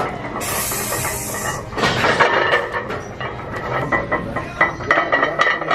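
Metal clinking and rattling in a run of short knocks, with a short burst of hiss about half a second in.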